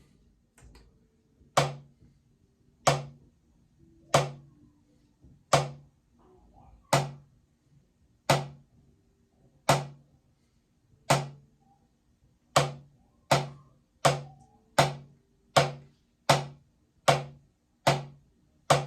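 Single drum hits, struck one at a time with each ringing briefly before the next. They come about every second and a half at first, then about twice as fast from two-thirds of the way through.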